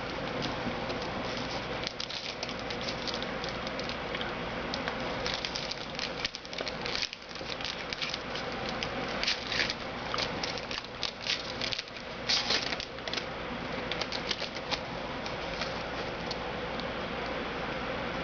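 Trading card packs and cards being handled, rustling and crinkling with light irregular clicks and ticks over a steady background hiss.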